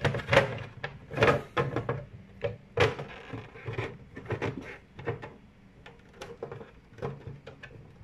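Scattered clicks and knocks of handling around the plastic housing of an unpowered fire alarm control panel.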